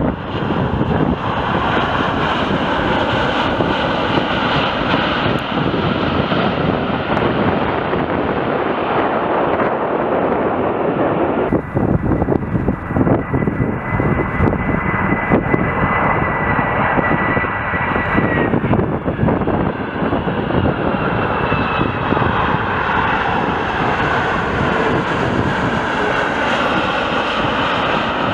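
Jet airliner on landing approach, its engines running loudly as it passes, with a thin steady whine held for about six seconds midway.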